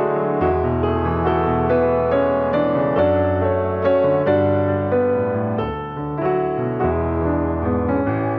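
Background piano music: slow, gentle chords with sustained bass notes, changing about once a second.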